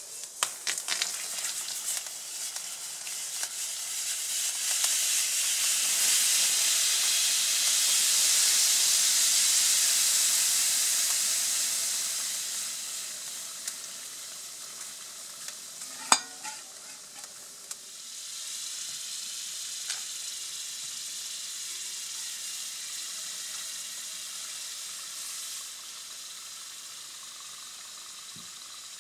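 Liquid nitrogen boiling violently with a sizzling hiss as it is poured into a glass dish over a YBCO superconductor and magnet array, cooling them. The hiss builds over the first ten seconds, then eases, with a sharp crack about sixteen seconds in and a quieter, steady sizzle as the bath settles.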